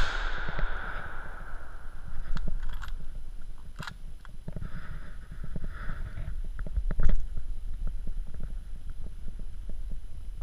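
The tail of a loud bang dies away over about a second and a half. Scattered clicks and knocks follow over a steady low rumble, with a louder knock about seven seconds in.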